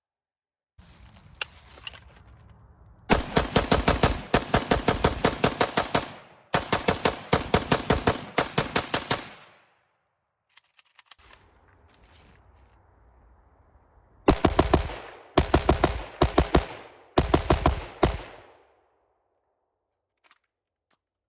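PSA AK-pattern rifle fired rapidly, about five shots a second: two long strings of quick shots, then three short strings near the end. Each string trails off in echo.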